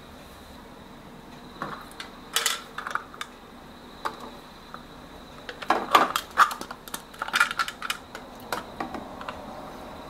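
Hard plastic and glass kitchenware being handled and set down: scattered clicks, knocks and clatters, with a busy run of them in the middle. The kitchenware is a plastic pickle press being fitted into a glass dish.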